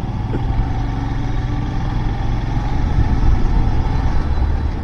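Royal Enfield Himalayan's single-cylinder engine running steadily on the move, a low hum under road noise.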